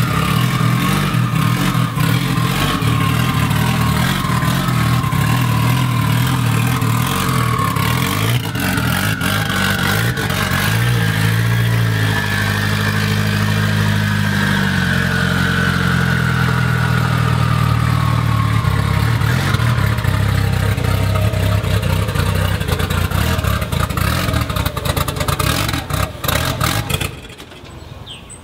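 Turbocharged four-cylinder engine of a drag-raced Chrysler Conquest running at low revs as the car is driven slowly out of a garage. Its pitch shifts about a third of the way in, and the sound drops away shortly before the end.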